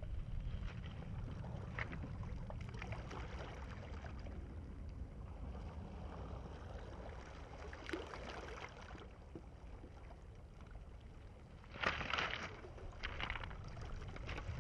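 Riverside foreshore ambience: a steady low rumble of wind on the microphone over faint water sounds, with a short louder scuffing noise about twelve seconds in.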